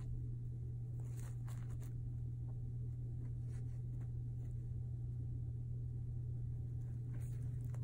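A steady low hum, with a few faint scratches and rustles of a guinea pig moving on towel bedding, a cluster about a second in and another near the end.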